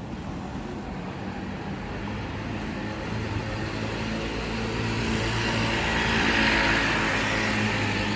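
A motor vehicle passes on the street, a steady engine hum under tyre hiss that grows to its loudest about six or seven seconds in and then eases.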